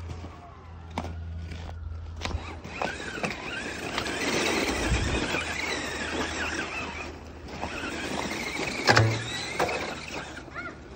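Electric RC car's motor whining and revving up and down as its wheels spin through snow, with a sharp knock near the end.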